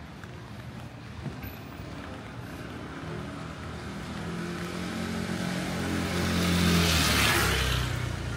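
A motor vehicle drives past, its engine and tyre noise growing louder over several seconds, loudest about seven seconds in, then fading.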